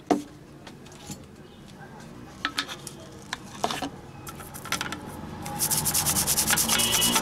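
A brush wet with thinner scrubbing the solder side of a printed circuit board in rapid back-and-forth strokes, cleaning flux from freshly soldered IC pins. The scrubbing starts in earnest about five and a half seconds in and gets louder. Before that there are only a few light clicks.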